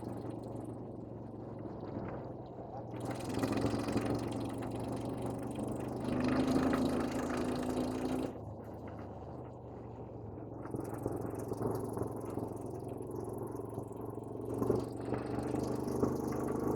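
A vehicle's engine running steadily under way, a low continuous hum with stronger held tones that come and go.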